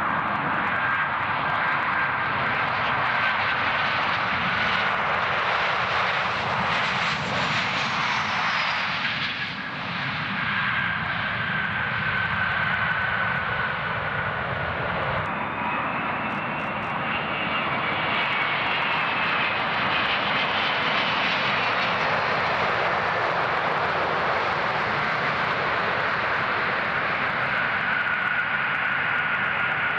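Jet airliners landing: first a twin-engine narrowbody jet, then a four-engine Airbus A380 touching down. Steady jet engine noise with a high whine that slowly falls in pitch; the sound changes abruptly about halfway through.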